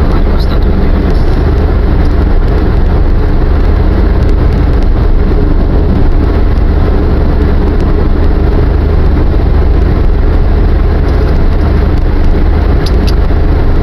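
Steady road and engine noise heard from inside a car cruising on an expressway.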